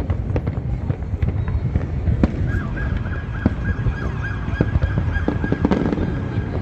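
Fireworks bursting over the river: a run of deep booms with sharp cracks scattered through. From about two and a half seconds in to near six seconds, a high honking tone pulses about three times a second over the bangs.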